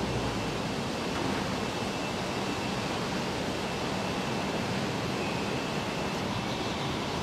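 Steady factory-floor noise on a car assembly line: an even hiss with a faint high-pitched whine running through it.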